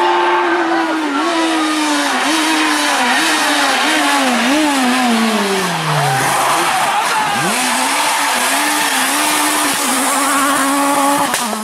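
Renault Clio S1600 rally car's 1.6-litre four-cylinder engine at high revs, its pitch rising and dropping repeatedly with gear changes and throttle lifts. About five seconds in the pitch falls in a long sweep, then climbs again as the car accelerates away.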